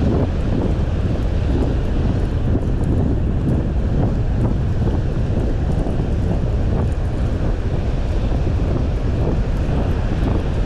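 Steady wind noise buffeting the microphone, with the rush of breaking surf behind it.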